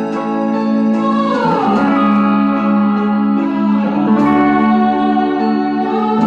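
Guitar playing a slow, mournful melody in F minor over sustained backing chords, with the notes sliding and bending in pitch: a downward glide about a second in and a rising one near the end.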